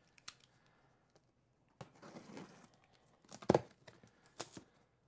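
Box cutter slicing through packing tape on a cardboard box, with the cardboard scraping and crinkling under the hands. Two sharper knocks in the second half, the louder about three and a half seconds in.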